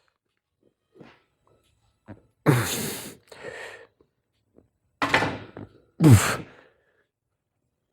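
A man's forceful grunting exhales as he strains through reps of a weight-lifting set. Three loud ones come about halfway in and near the end, each dropping in pitch, with faint breaths between them.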